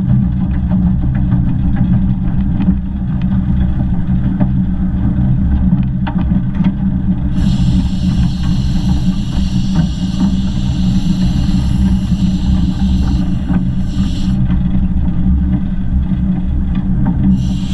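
15-inch-gauge steam locomotive 'Northern Rock' running, heard from its cab side: a steady low rumble of the wheels and motion with light clicks. A high hiss joins about seven seconds in, stops for a few seconds, and starts again near the end.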